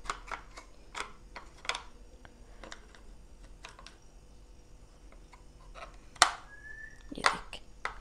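Hard plastic clicks and knocks as the softener insert and detergent dispenser drawer of an LG front-load washing machine are handled and snapped together, with a sharper click about six seconds in and another a second later.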